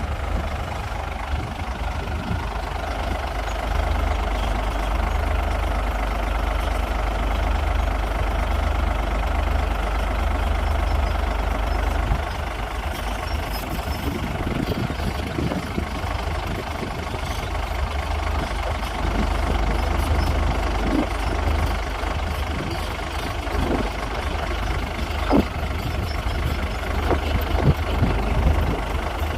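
Komatsu D58P bulldozer's diesel engine running steadily, with scattered sharp knocks in the second half.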